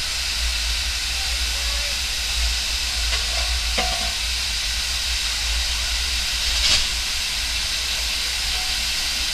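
Small industrial tank steam locomotive standing still and blowing off steam, a steady loud hiss, the sign of a boiler at full pressure with its safety valves lifting. Two faint clicks come through about four and seven seconds in.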